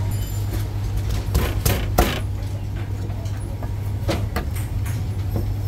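Heavy Chinese cleaver knocking on a thick round wooden chopping block: a few separate strikes, a quick group of three about a second and a half in and two more near the end, over a steady low hum.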